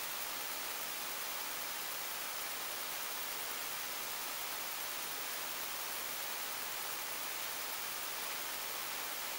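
Steady hiss of recording noise from the microphone and preamp in an unattended room, with no other event heard. A faint, high steady whine runs under the hiss.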